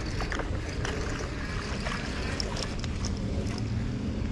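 Wind rumbling and buffeting on the microphone, with a few faint clicks.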